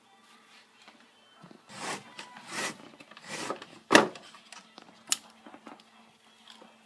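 Handling noises: three short rustling, rubbing sounds, then a sharp knock about four seconds in and a few lighter clicks.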